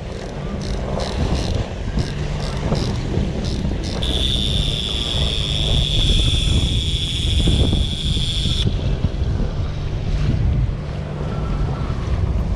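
Wind buffeting the microphone over rushing water as the sailboat runs. A trolling reel's clicker ticks a few times as line pays out, then buzzes in a steady high whine from about four seconds in that cuts off suddenly near nine seconds.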